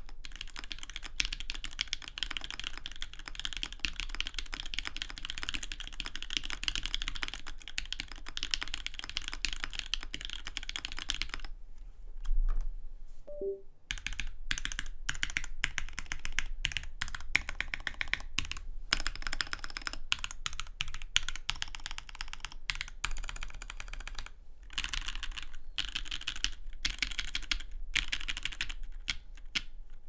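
Typing on an Alice-layout mechanical keyboard with a frosted acrylic case and acrylic plate, Jwick black linear switches, GMK keycaps and Durock stabilizers. Fast, continuous clicking at first, then a brief pause with a low thump about twelve seconds in, after which the keystrokes come more spaced out before quickening again.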